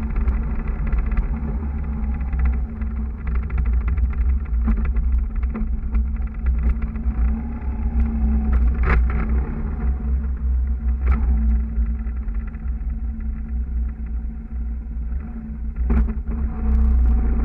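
Motorcycle engine running at a steady note as heard from on the bike, under heavy wind rumble on the microphone. A few sharp clicks or knocks stand out about 9, 11 and 16 seconds in.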